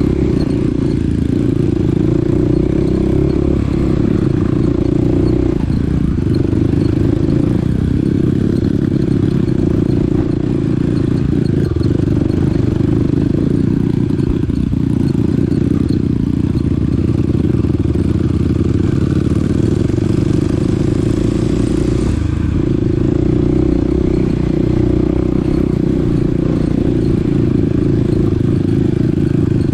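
Small dirt bike's engine running steadily as it is ridden along a trail, with a few brief dips in the engine sound.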